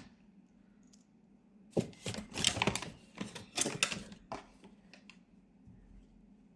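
A quick run of sharp clicks and clacks, like small hard objects being handled and knocking together, starting about two seconds in and lasting about three seconds.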